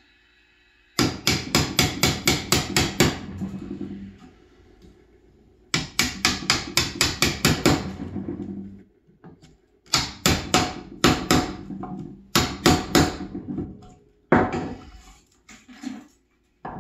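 Claw hammer striking the handle of a wood chisel to chop the waste out of a joint in pine. The taps come in quick runs of about four to five a second, with pauses between, and a few single blows near the end.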